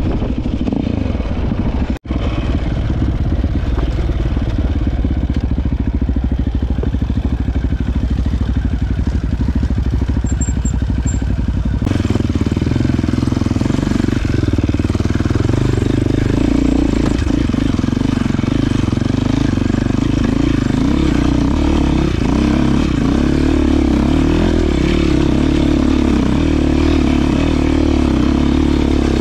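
Enduro dirt bike engine running as the bike is ridden along a dirt trail, heard close up from the handlebars, its pitch wavering with the throttle. The sound cuts out for an instant about two seconds in and changes abruptly to a louder, busier engine note about twelve seconds in.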